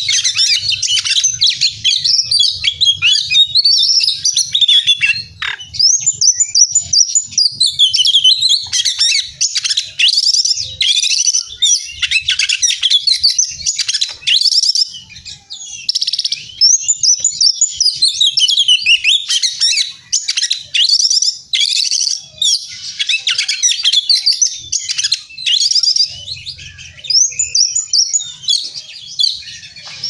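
Oriental magpie-robin in full song: a fast, nearly unbroken run of varied whistles, trills and chirps, with only brief pauses.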